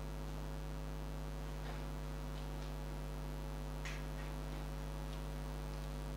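Steady low electrical mains hum from the sound system, with a few faint light ticks and rustles.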